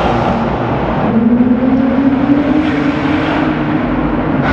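Performance car engines running loud and revving in a road tunnel. One engine climbs in pitch about a second in and holds there.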